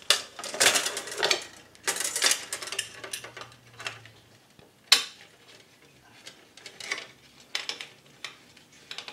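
Metal clinks, taps and scraping from a pressure-cooker lid and copper tubing being handled, busy for the first couple of seconds, with one sharp click about five seconds in and then only a few small knocks.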